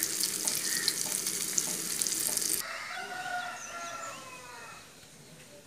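Rava-coated sardines sizzling in hot oil on a tava; about two and a half seconds in the sizzle cuts off abruptly and a rooster crows once, a long call falling in pitch, then fades.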